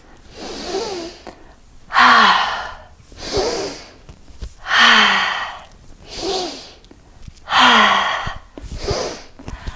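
A woman breathing hard in a steady rhythm during exercise: a quicker breath in, then a loud, sighing breath out, about every three seconds.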